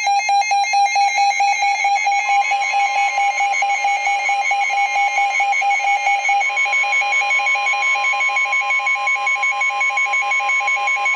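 NOAA Weather Radio emergency alert tones: a loud, rapidly pulsing electronic alarm tone. A steady single-pitched tone, the weather radio's 1050 Hz warning alarm, joins about two seconds in and grows stronger about six seconds in. These tones signal that a warning message is about to be broadcast.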